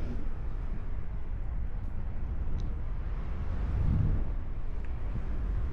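Wind rushing over the microphone of a paraglider in flight, a steady low rumble that swells briefly about four seconds in.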